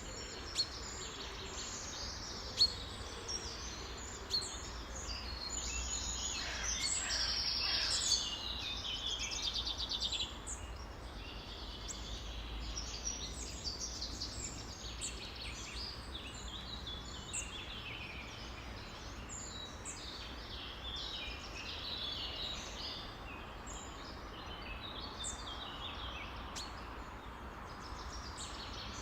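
Many songbirds chirping and singing at once, a dense overlapping chorus that is busiest and loudest for a few seconds near the start of the second quarter, over a steady low rumble. A few sharp clicks stand out in the first five seconds.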